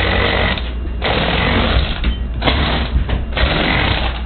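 Power Functions electric motors driving a motorised LEGO Crystal Reaper, the plastic gears whirring with a faint high whine. The drive cuts out briefly three or four times and starts again.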